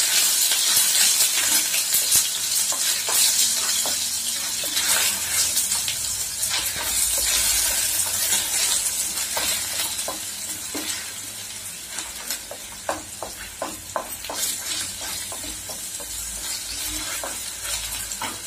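Crushed garlic and ginger-garlic paste sizzling in hot oil in a kadai, stirred with a wooden spatula that scrapes and knocks against the pan. The sizzle gradually dies down as the garlic fries.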